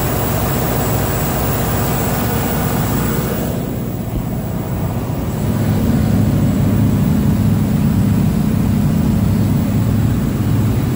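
Caterpillar XQ1475 1475 kW diesel generator set running during a load test: a loud, steady, low engine drone. About four seconds in, the upper hiss falls away and the low drone becomes heavier.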